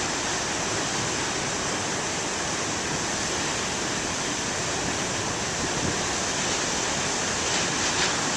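Large waves breaking and surf washing on the shore, a steady rush of water, briefly a little louder near the end.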